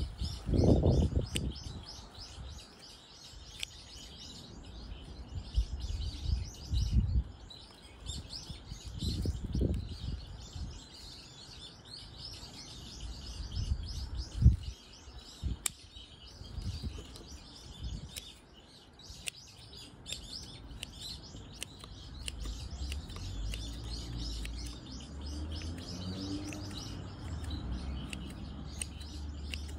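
Birds chirping steadily in the background, with the rustling and low knocks of hands working a pine's root mass and scissors trimming the roots, including one sharp knock about halfway through.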